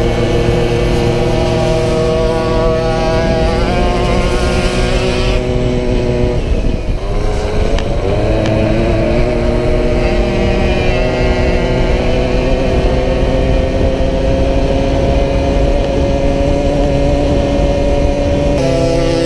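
A Solex moped's small two-stroke engine running flat out, heard close up with wind rushing past. About six to seven seconds in the note dips and drops as the bike slows, then climbs slowly as it picks up speed again. Near the end a second engine note joins in.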